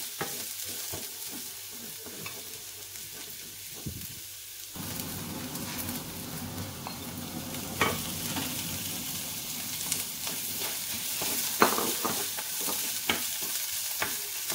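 Chopped ginger, garlic, spring onion and chili sizzling in oil in a small non-stick frying pan, stirred with a wooden spatula that knocks and scrapes against the pan now and then. The sizzle grows louder about five seconds in.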